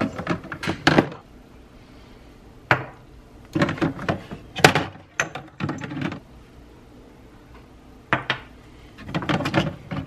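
Wooden kitchen cabinet and the glass jars and mugs on its shelves being handled: scattered sharp knocks, clicks and clinks in short clusters with pauses between.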